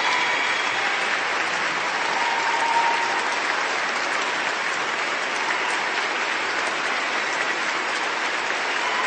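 Steady, unbroken applause: many people clapping at once.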